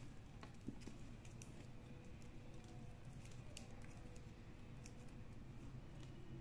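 Faint, scattered clicks and rustling of plastic craft wire being threaded and tucked through tight woven knots by hand, with a low hum underneath.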